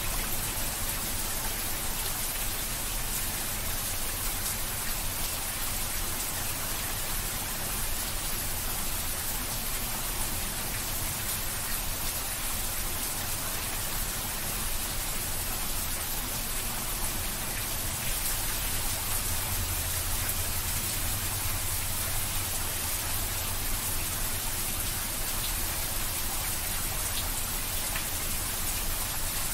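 Steady rain falling, an even continuous hiss that holds at the same level throughout.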